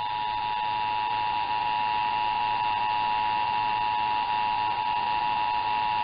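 Emergency Alert System attention signal: the two-tone alarm of 853 Hz and 960 Hz sounding together, held steady. It is heard over AM broadcast radio through a web software-defined receiver, with a faint steady high whistle and static underneath.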